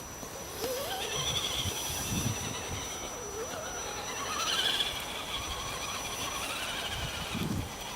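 Electric drive of an RC 4x4 Jeep crawler whining, its pitch rising and falling with the throttle, with a few low thumps.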